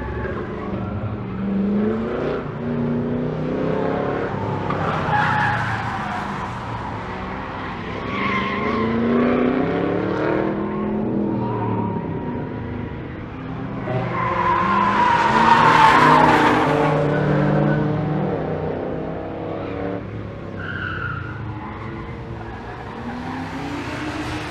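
Race car engines, the Chevrolet Corvette among them, accelerating and lifting off as they pass on the circuit, the engine notes rising and falling through the gears. The loudest pass is about two-thirds of the way through.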